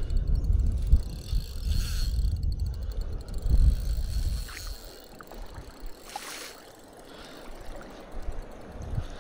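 Wind buffeting the microphone as a low rumble, heavy for the first four seconds or so and then dying down, with a few short rushes of noise.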